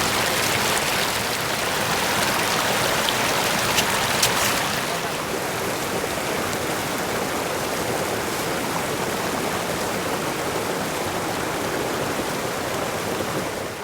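Mountain stream rushing steadily over rocks, with a few sharp clicks about three to four seconds in.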